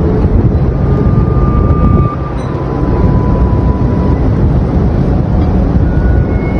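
Loud, steady low roar of strong storm wind, dipping briefly about two seconds in.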